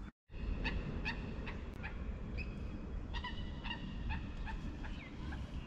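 Wind rumbling on the microphone, with about a dozen short, high calls from an animal, irregularly spaced about twice a second, one gliding down in pitch near the end.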